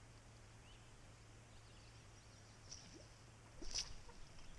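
A fish striking a topwater frog popper: one brief splash at the surface about three and a half seconds in, over faint bird chirps.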